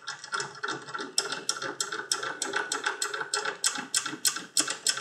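A steel bolt wiggled back and forth by hand in a vise, its nut and threads clicking steadily at about four to five clicks a second as the right-hand-threaded nut walks itself loose: mechanical precession.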